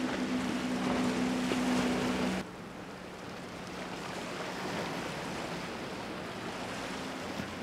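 A motorboat running fast: a steady engine drone over the hiss of spray from the hull. About two and a half seconds in it gives way abruptly to softer water noise, waves and wash against the rocks, with only a faint engine hum beneath.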